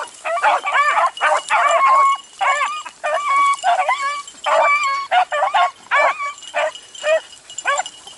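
A pack of beagles baying in full cry while running a rabbit: many short, high calls from several dogs overlapping, with brief pauses between volleys.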